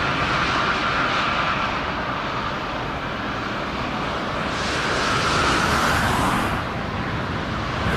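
Airliner engines during a landing: a steady whine over a broad rush of noise, swelling about five seconds in and dropping off sharply a second later. Heavy low rumble from wind on the microphone runs underneath.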